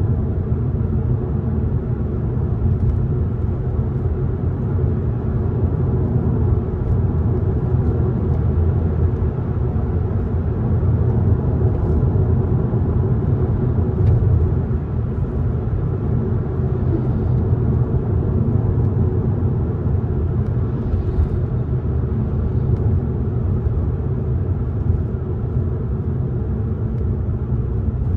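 Alfa Romeo MiTo cruising, heard inside the cabin: a steady low rumble of engine and road noise.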